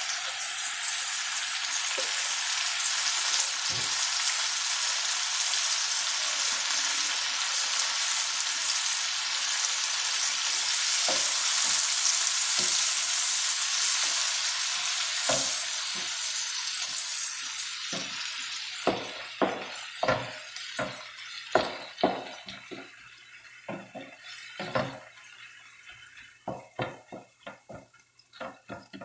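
Diced tomatoes sizzling in hot olive oil with sautéed onion and peppers in a frying pan. The loud sizzle fades over the second half as the tomatoes settle, while a wooden spoon stirs and knocks repeatedly against the pan.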